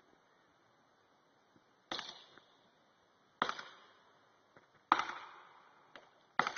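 Axe chopping into a tree trunk: four sharp blows about a second and a half apart, each ringing off briefly.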